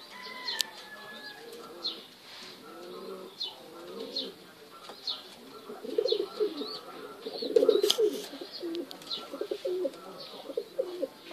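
Domestic pigeons cooing in a loft, low warbling coos that grow louder and busier in the second half. Short high chirps repeat through it, with a sharp click about half a second in and a louder one near eight seconds.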